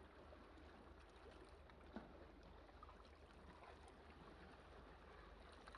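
Near silence, with a faint steady low hum and one small click about two seconds in.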